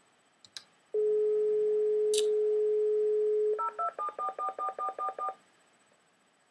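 A couple of faint clicks, then a telephone line's dial tone: one steady tone lasting about two and a half seconds. It breaks off into a quick string of about ten keypad DTMF tones as a phone number is dialled.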